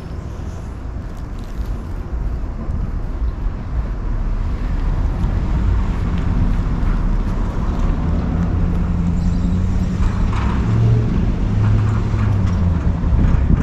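A motor vehicle's engine rumbling on a nearby street, growing louder over the first few seconds and holding a steady low hum.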